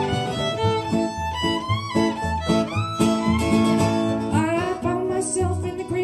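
Live acoustic string band playing an instrumental break: a fiddle leads with sliding notes over plucked guitar and an upright bass.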